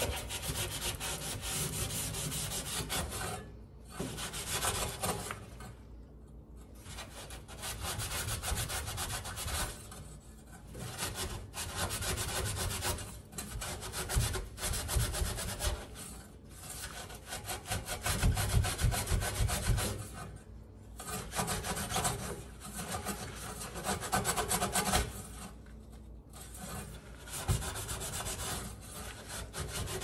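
Scrubbing inside a stainless-steel toaster oven with a rubber-gloved hand, a dense rasping rub in repeated back-and-forth strokes, broken by short pauses every few seconds.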